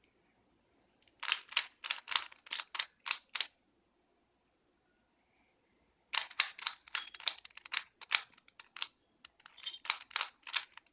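Rubik's cube being turned quickly by hand, its layers clicking in rapid runs. There are two bursts of several clicks a second, with a pause of a few seconds between them.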